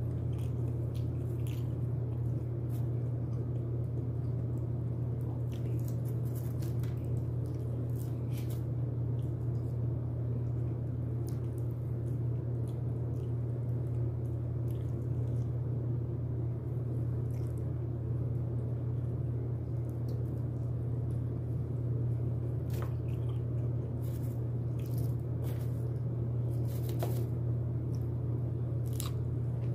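A person eating broasted chicken: scattered short bites, chews and mouth clicks over a steady low hum.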